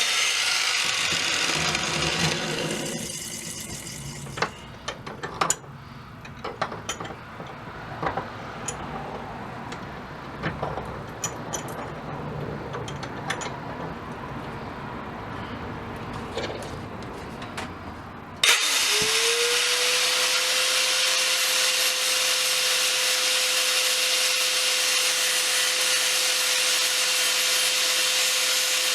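Power grinder fitted with a flap disc, grinding and smoothing the metal of a cast hammer head, winding down about three seconds in. Then scattered clicks and knocks of handling, until about eighteen seconds in the grinder switches on, spins up to a steady whine and grinds again, taking out nicks and casting marks.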